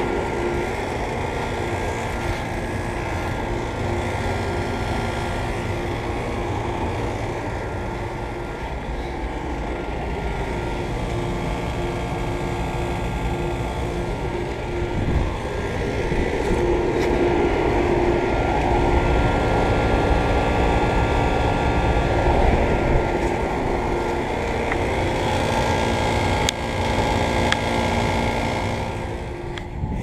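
Trane XE1000 central air conditioner condensing units running: a steady mechanical hum from the outdoor fans and compressors, with a few held tones.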